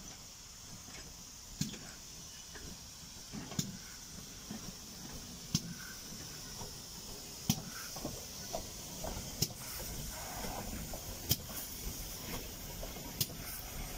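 GWR small prairie steam tank engine No. 5542 moving slowly under steam. Sharp exhaust beats come about every two seconds, with fainter beats between them, over a steady hiss of steam, and the sound grows louder as the engine comes close.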